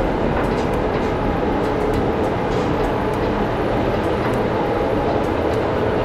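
Steady, loud mechanical running noise of jaggery-mill machinery working, with faint scattered clicks.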